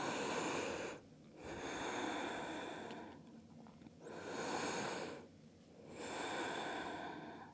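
A woman breathing slowly and deeply while holding a stretch: four long, soft breath sounds, each one to two seconds, with short pauses between them.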